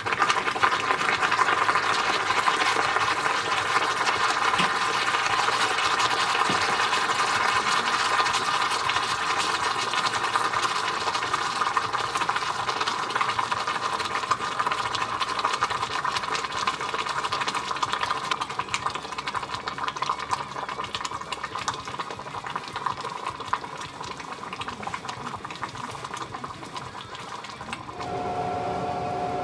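Steady sizzling and crackling from a red-hot metal ball cooling in a glass, slowly dying down as the steam clears. Near the end it drops away to a quieter steady hum.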